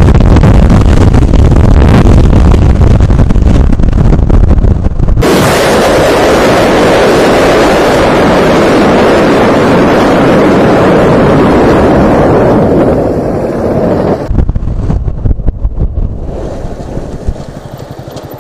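Heavy wind rushing over the microphone of a motorcycle-mounted camera at speed, with the riding noise underneath. The sound changes abruptly about five seconds in and again about fourteen seconds in, and dies down near the end.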